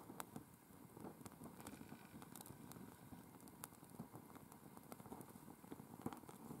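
Small wood campfire crackling faintly, with irregular sharp pops and snaps.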